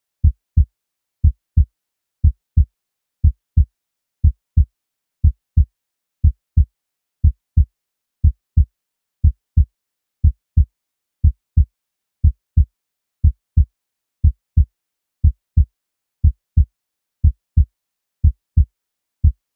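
Heartbeat sound effect: steady pairs of short, low thumps (lub-dub), about one beat a second.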